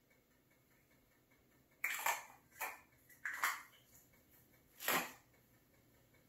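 Unboxing handling noise: plastic and cardboard packaging being moved, heard as four short, faint rustles spaced about a second apart after a quiet start.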